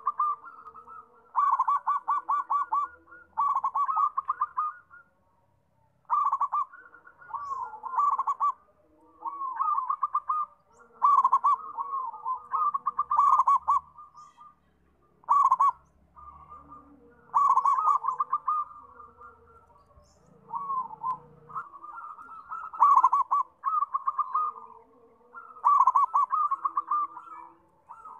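Zebra dove (perkutut) cooing in phrase after phrase of fast, rolling staccato notes, each phrase about a second long, with short pauses between.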